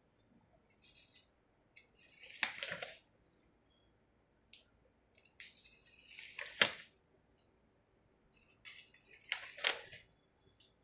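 Paper pages of a handwritten file being turned one after another: three swishes about three to four seconds apart, each ending in a sharp flap, with lighter rustling of paper between.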